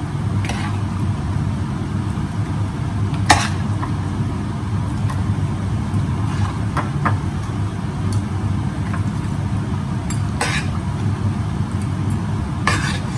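A steady low hum runs throughout, with a handful of short, sharp clinks of kitchen utensils against dishes, the loudest about three seconds in.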